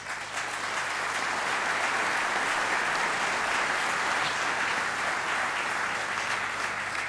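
Audience applauding, steady throughout and easing off slightly near the end.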